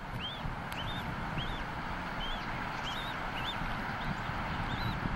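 Newly hatched bald eagle chick peeping to beg for food: thin, high chirps that rise and fall, about two a second, over a steady low rush of noise.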